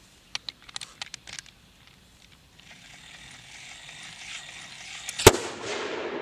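Metallic clicks as a key is fitted to a hand-operated electric blasting machine, then a building whir as it is turned, then a single sharp explosion about five seconds in, followed by a rolling echo: the blasting charge firing.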